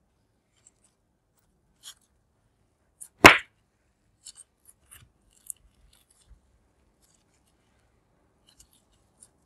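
Glitter slime being kneaded and squeezed by hand, giving scattered small wet clicks and crackles and one loud sharp pop a little over three seconds in as air trapped in the slime bursts.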